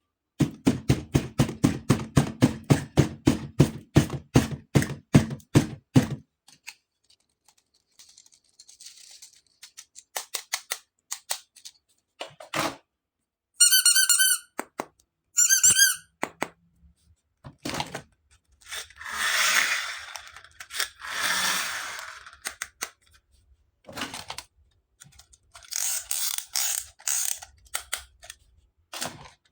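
Small plastic toy parts and packaging being handled: a quick run of clicks and light knocks, scattered clicks, two short warbling squeaks about halfway through, a pair of rustles, then a brief patter of sharp clicks near the end.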